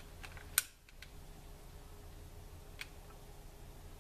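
Faint, steady fizzing and ticking of gas bubbles from a homemade HHO electrolysis cell and its water bubbler, over a low hum, with one sharp click about half a second in.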